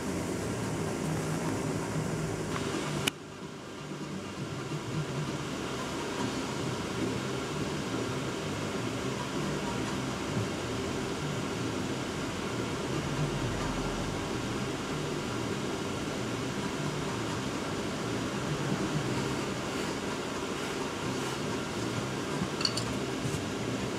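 Steady mechanical room hum, like a ventilation fan running. About three seconds in there is a sharp click, after which the hum drops quieter for a moment and then builds back.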